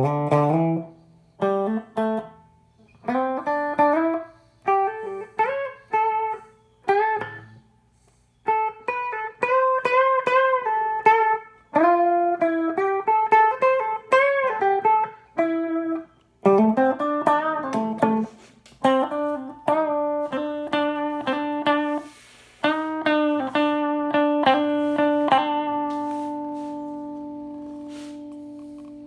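Electric guitar with a Seymour Duncan JB humbucker played through a Marshall JTM50-style tube amp build: loose single-note phrases with string bends and vibrato. Near the end a chord is struck and left to ring, slowly fading.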